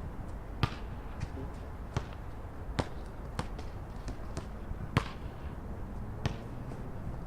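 A basketball bouncing on a court some distance off, a sharp thud every half second to a second and a half at an uneven pace, over a steady low traffic rumble.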